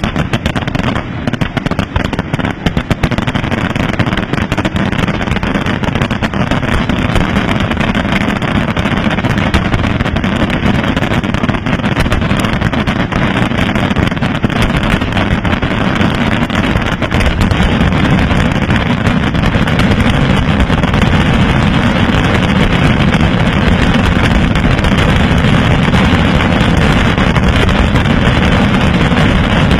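Aerial fireworks shells bursting in a dense, continuous barrage, the crackle and booms running together into a steady roar. The barrage builds louder from about halfway through.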